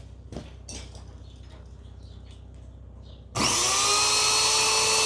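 A few faint clicks, then about three and a half seconds in, a blender motor is switched on and at once runs at full speed with a loud, steady high whine. It is a test run showing the new wiring works.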